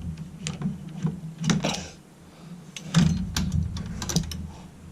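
Short clicks and scrapes of a tool working a tight screw out of a motorcycle headlight trim ring, in uneven bursts.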